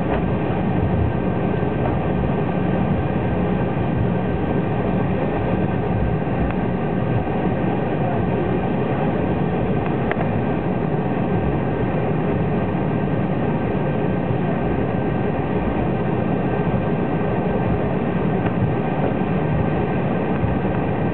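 Cabin noise of an Embraer 190 jet airliner taxiing, heard from inside the cabin: a steady rumble and hum from its two turbofan engines at taxi power and the rolling gear, with a faint steady whine over it.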